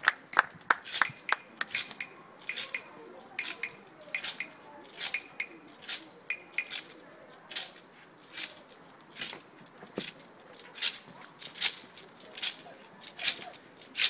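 Hand clapping: a few quick claps as the applause thins out, then a slow, steady beat of single claps, a little over one a second.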